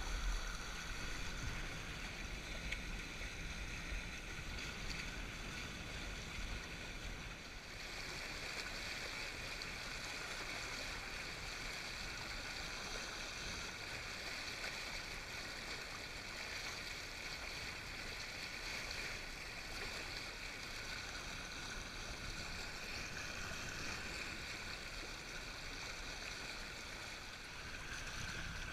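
Water rushing and gurgling steadily past the hull of a Windrider 17 trimaran under sail. A low rumble in the first several seconds drops away at about eight seconds, leaving the water sound alone.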